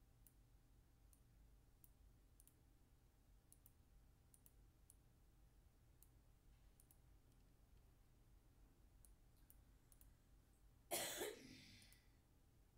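Faint computer mouse clicks, scattered and sparse, then one loud cough about eleven seconds in.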